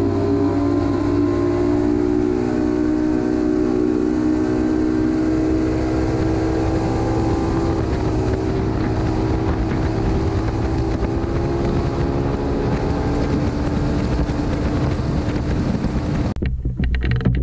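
A bass boat's outboard motor running at speed, a steady drone whose pitch climbs slowly, with wind rushing past. About a second before the end the motor sound cuts off sharply, leaving gusty wind noise.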